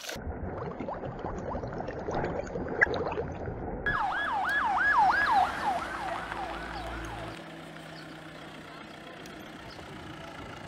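Water splashing, then about four seconds in a siren starts: fast up-and-down sweeps, about four a second, fading out after about three seconds.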